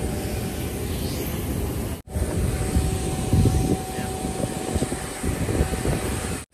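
Steady jet aircraft noise on an airport ramp: a continuous even whine with a thin steady tone over an uneven low rumble. The sound drops out for a moment about two seconds in.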